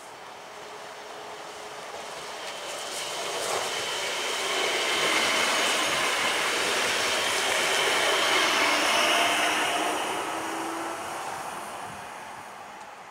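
Stadler FLIRT electric multiple unit passing at speed: the rush of its wheels on the rails swells to a peak in the middle and fades as it goes by, with faint whining tones over the noise.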